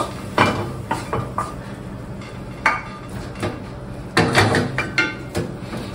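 Wooden spatula scraping and knocking against a wok and a glass bowl as fried food is scraped out of the pan, in short irregular strokes with a few clinks.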